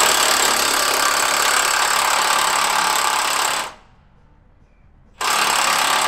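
Impact wrench hammering in loud bursts, a long run of about three and a half seconds that cuts off abruptly, then a second burst starting about five seconds in.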